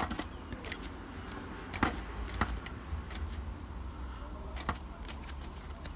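Faint scattered taps and clicks as a foam sponge is dabbed over a plastic stencil on a plastic model building held in the hand, over a steady low hum.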